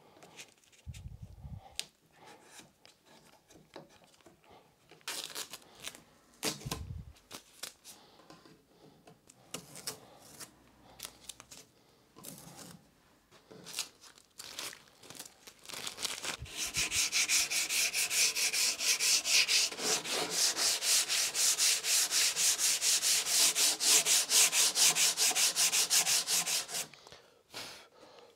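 Masking tape being peeled and pulled off a freshly glued wooden workbench edge with light rustles and small clicks. About two-thirds of the way in comes a loud, steady run of rapid back-and-forth hand-sanding strokes on wood, several a second, which stops shortly before the end.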